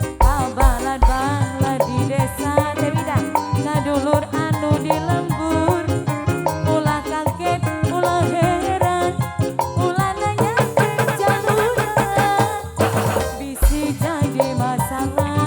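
Upbeat instrumental folk music for a domba kuring procession: a melody with sliding, bending pitches over drums and percussion.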